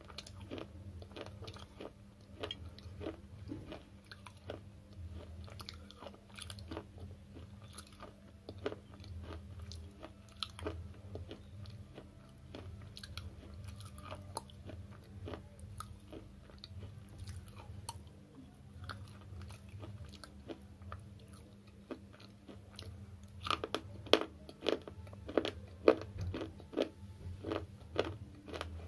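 Slate chips being bitten and chewed dry in the mouth: a continual run of small, crisp crunches and crackles, with louder, sharper crunches near the end. A steady low hum runs underneath.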